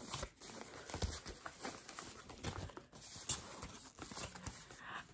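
Plastic packaging being handled: faint, irregular crinkling of a plastic bag and wrap with light clicks and taps as a compact camera is lifted out of its plastic tray.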